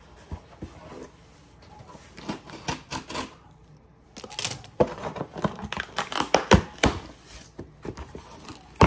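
A shipped package being opened by hand: packaging tearing and crinkling in irregular sharp snaps. It is sparse at first and becomes busy and louder about halfway through.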